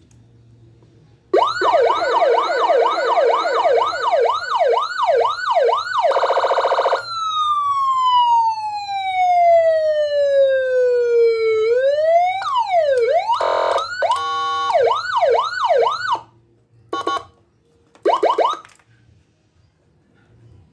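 Electronic 12-tone siren module with double tone and echo, running through its siren patterns. It starts about a second in with fast repeated rising-and-falling yelps, then goes to a rapid warble, a long slow falling wail that swings back up, a stepped two-note tone and more yelps, and ends with short bursts.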